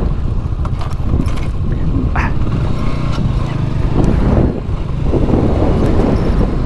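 Small 150cc motorbike engine running under a steady low rumble, with a few short rattling clicks from the bike.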